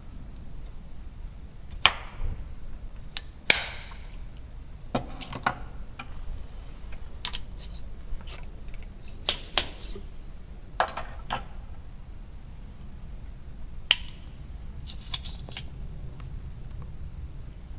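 Loading a muzzle-loading black powder match pistol: the wooden short starter and ramrod knock and tap against the barrel as a ball is pushed down and seated. About a dozen separate sharp knocks and clicks come at irregular intervals, the loudest about three and a half seconds in and again near fourteen seconds.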